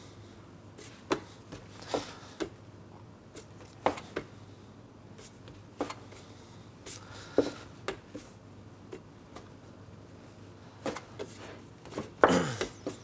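Dough scraper cutting dough and knocking on a wooden workbench, with dough pieces set down on a digital scale: scattered short knocks and clicks every second or two. A longer, louder noise with a falling pitch near the end.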